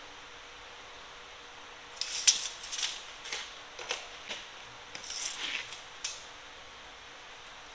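Steel tape measure blade clicking and scraping against a steel reamer shaft as it is handled and laid along it: a run of short, light metallic clicks from about two seconds in until about six seconds in.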